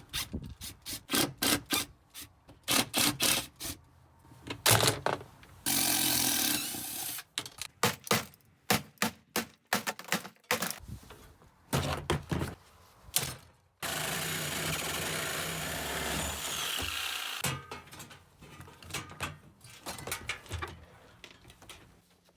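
Dishwasher being taken apart for scrap: repeated knocks, clicks and clatter of metal and plastic parts, with a power driver running twice in steady stretches of a second or more, the second one longer.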